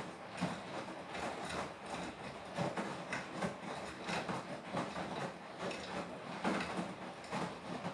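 Beko WTK104121W washing machine drum turning in the wash phase of a Quick 40 cycle: wet laundry tumbling and water sloshing in uneven, repeated swishes and soft thuds.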